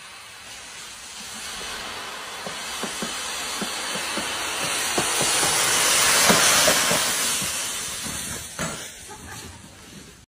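Thick dry fallen leaves rustling and crackling as a mountain bike ploughs through them. The noise swells to its loudest about six seconds in, as the bike passes close, then fades.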